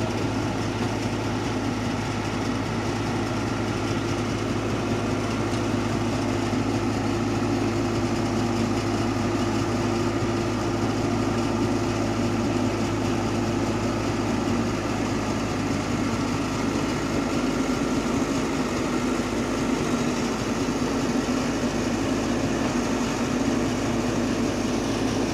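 Diesel engine of a Komatsu PC71 mini excavator running steadily with an even low hum.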